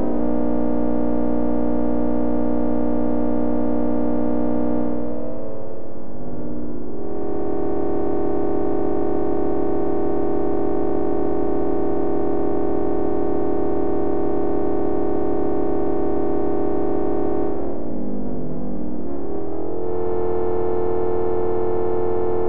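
Wavetable synthesizer drone in Max/MSP, its wavetable made from a jit.bfg transfer.saw basis function and run through a resonant low-pass filter: a steady buzzy tone. Twice, around five and eighteen seconds in, its timbre morphs smoothly into a new steady tone as the basis function's scale is changed, crossfaded between successive wavetables to avoid clicks.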